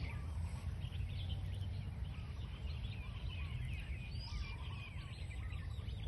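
Several small birds chirping and calling over one another in quick, high twittering phrases, over a steady low rumble.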